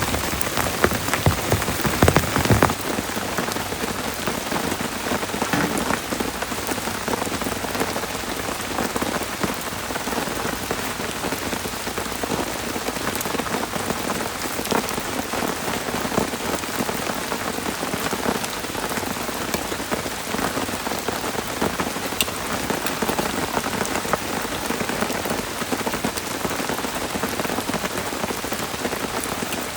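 Heavy rain falling steadily, a dense patter of drops striking a surface. The first two or three seconds carry a heavier, deeper drumming before it settles into an even downpour.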